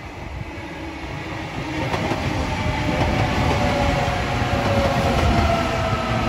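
Sydney Trains Millennium (M set) double-deck electric train passing close by on the rails, its wheel and rail noise growing louder about two seconds in. A whine slowly falls in pitch through the second half as the train goes by.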